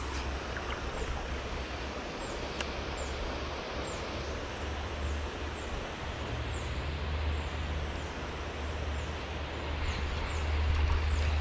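Steady rushing of a creek running high after heavy rain, with a low rumble that grows louder near the end and a few faint high bird chirps.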